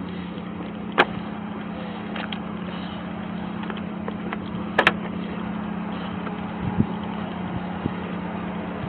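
Body-worn camera microphone picking up a steady low hum under a light hiss, broken by sharp clicks and knocks of gear against the camera as the wearer walks: one loud click about a second in, a quick double click near five seconds, and softer knocks near the end.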